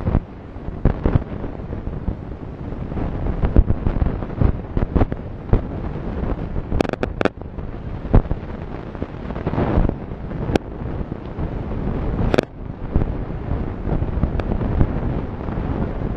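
Wind buffeting the microphone with a continuous rough rumble, broken by a string of sharp pops and knocks, the loudest a few seconds apart.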